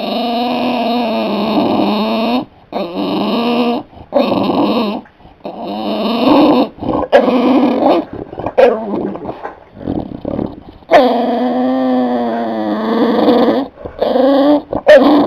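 Bulldog 'talking': a string of drawn-out, wavering whine-growl calls with short breaks, the longest about two-thirds of the way in. It is the noise he makes to ask to be let up into a lap or onto the couch.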